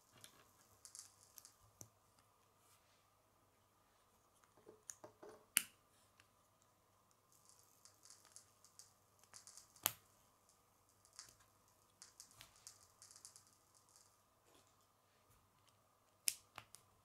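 K'nex plastic pieces being handled and snapped together: three sharp clicks, at about five, ten and sixteen seconds in, as connectors snap into place, with quieter ticking and rattling of the pieces in between.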